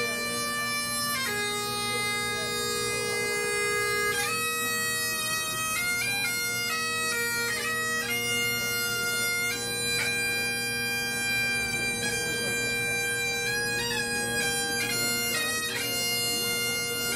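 Bagpipes playing a tune: steady drones under a melody on the chanter that moves from note to note.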